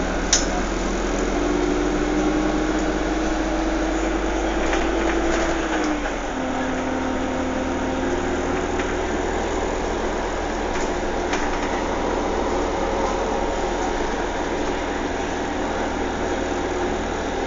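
Steady running noise of a motor vehicle with a low engine hum. The hum's pitch drops slightly about six seconds in.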